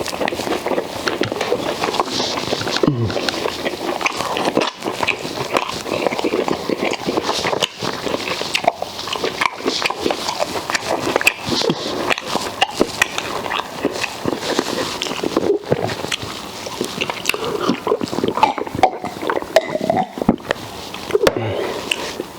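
Close-miked eating sounds of fufu with okra soup and grilled pork: steady wet chewing with many small mouth clicks.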